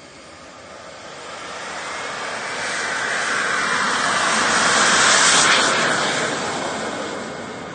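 Radio-controlled model jet on its takeoff roll, its jet engine giving a steady rushing noise. The noise swells as the jet runs past, is loudest about five seconds in, then fades as it moves away.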